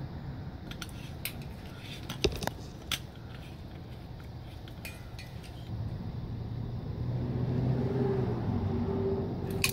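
Scattered clicks and clinks from handling diesel fuel filter canisters, their plastic sensor end and a locking vise grip on a concrete floor. A low hum comes up about halfway through and grows louder.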